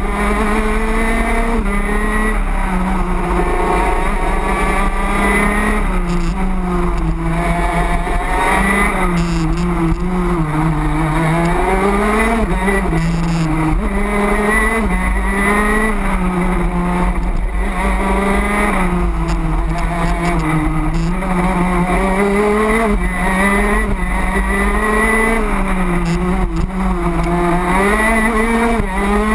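A two-stroke racing kart engine heard from on board at full race pace. Its pitch climbs as it revs out on each straight and drops back as the driver brakes for the next corner, again and again. The deepest drop comes about a third of the way through, in a slower corner.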